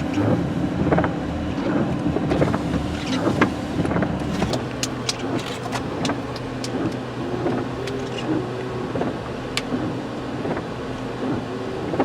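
Vehicle engine running under a noisy background with scattered sharp taps, settling from a heavier rumble into a steadier hum about four and a half seconds in.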